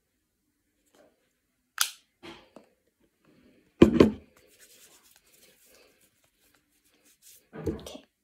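Plastic lotion bottle being handled: a sharp click of its cap about two seconds in, then a heavy thump about four seconds in as the bottle is put down close to the microphone, with faint rustling and a softer knock near the end.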